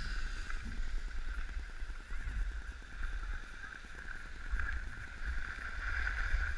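Wind rumbling on the microphone of a camera carried by a moving skier, with a steady hiss of skis sliding over packed snow that swells a little near the end.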